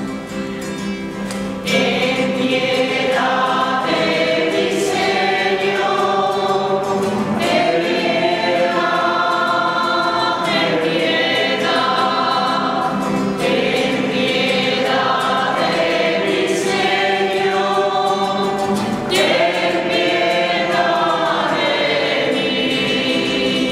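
A church choir of mixed voices singing a liturgical hymn, becoming fuller and louder about two seconds in.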